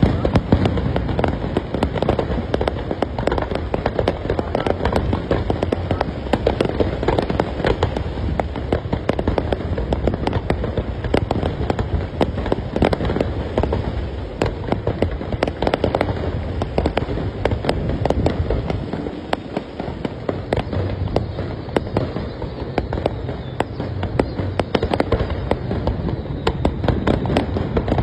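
Fireworks display: a dense, unbroken barrage of bangs and crackling over a low rumble, easing briefly about two-thirds of the way through.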